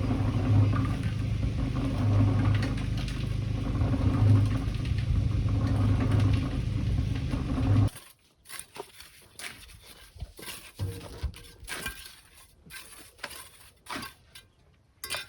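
An engine running steadily with a slightly pulsing low hum, cut off abruptly about eight seconds in. Scattered light clicks and knocks follow.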